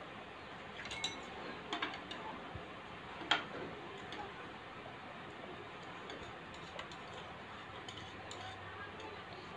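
Chopsticks clicking and tapping against a plate as food is picked at: a few sharp clicks in the first few seconds, the loudest a little over three seconds in, then fainter ticks over a steady background hiss.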